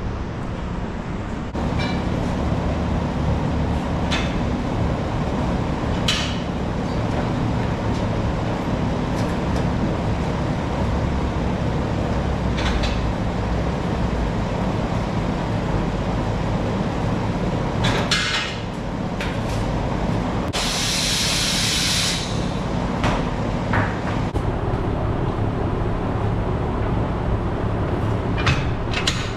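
Tire changer at work mounting a new tire on a steel trailer wheel: a steady machine hum under scattered metal clicks and knocks, with a burst of compressed-air hiss lasting about a second and a half about two-thirds of the way through.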